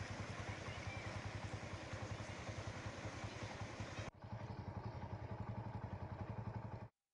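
An engine running steadily with a fast, even pulse. It dips briefly about four seconds in, runs again, then cuts off suddenly near the end.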